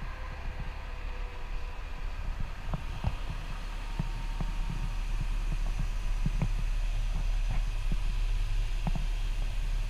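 CAT 950H wheel loader's diesel engine idling with a steady low rumble that grows somewhat louder, with scattered light knocks and clicks from the camera being handled.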